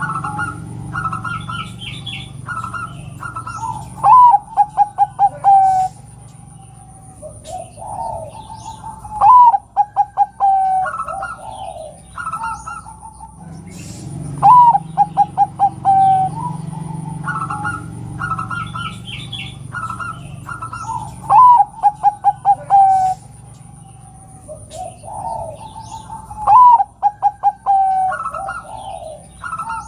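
Zebra dove (perkutut) calling: a short rising note then a quick run of soft staccato coos, repeated five times about every five seconds, the female's call used to draw a male into singing. Softer, higher chirps fill the gaps between phrases.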